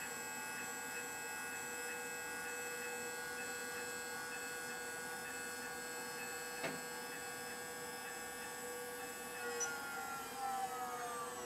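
Actuonix L16-R miniature linear actuator, a small 150:1 geared motor, whining steadily as it slowly lowers a plastic dump bed. There is a single click about two-thirds of the way through, and the whine drops in pitch near the end as the bed nears its lowest stop.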